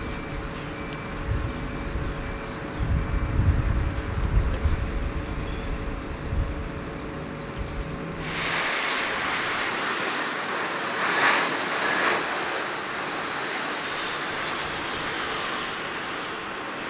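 Jet airliner engines on a landing approach: an uneven low rumble, then about eight seconds in an abrupt change to a steady jet hiss with a high whine that falls slightly in pitch, loudest around the middle.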